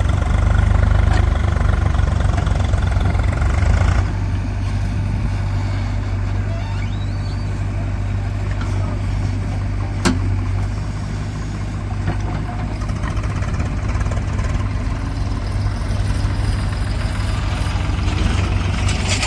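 JCB 3DX backhoe loader's diesel engine running steadily, louder for the first four seconds, with a sharp click about ten seconds in.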